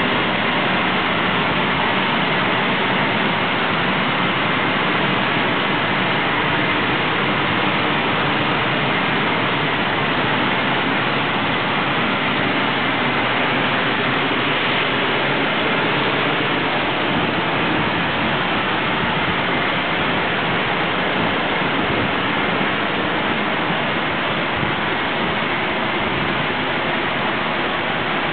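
Thermion Precision Arc twin-wire arc spray gun spraying aluminum: a loud, steady hiss of the compressed-air jet atomizing the arc-melted wire, unbroken throughout.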